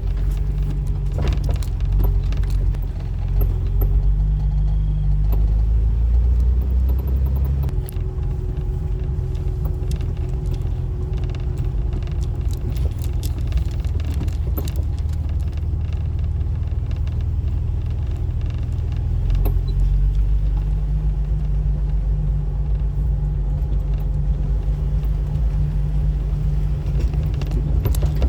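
A 2004 Jeep Wrangler driving, its engine and road rumble steady, with light rattling and clicks throughout. The rumble eases about eight seconds in and picks up again about twenty seconds in.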